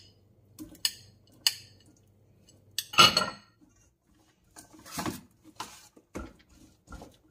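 A metal spoon and a ceramic dish clinking and scraping against a stainless steel mixing bowl as corned beef is scraped in and stirred into batter: a string of irregular clinks, the loudest about three seconds in and a busier run of scrapes about five to six seconds in.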